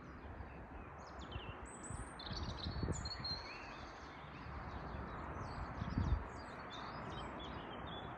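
Several small songbirds chirping and trilling over a steady rushing background. Two low thumps come about three and six seconds in.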